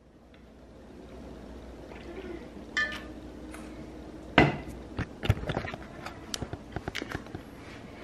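Handling noise on a wooden tabletop: scattered light clicks and knocks as a cup and other things are moved about, with one sharp knock about four and a half seconds in and a short squeak just before three seconds.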